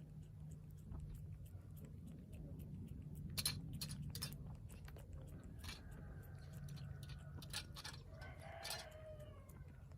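Street cat chewing food with irregular wet clicks and smacks, letting out short pitched noises as it eats, the clearest near the end.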